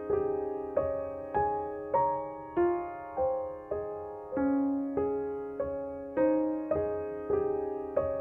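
Background piano music: notes and chords struck at a steady pace, a little under two a second, each one dying away before the next.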